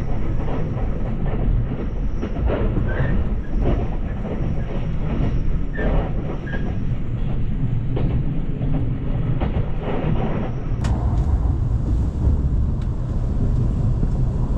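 Train running on rails: a steady low rumble with scattered light clicks, the top end turning hissier about eleven seconds in.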